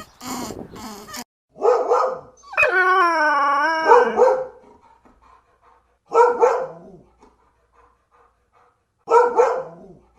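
A dog giving a few short huffs, a bark, then one long wavering howl lasting over a second, followed by two single barks about three seconds apart.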